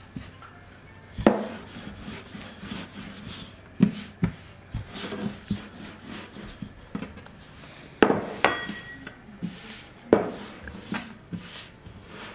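Wooden rolling pin rolling out samosa dough on a floured tabletop, a soft rubbing sound broken by several sharp knocks. One knock, a little after eight seconds in, leaves a brief ringing.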